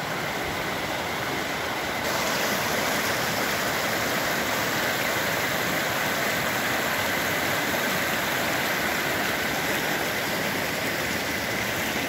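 Fast-flowing snowmelt mountain stream rushing over rocks: a steady, even wash of running water that grows a little louder about two seconds in.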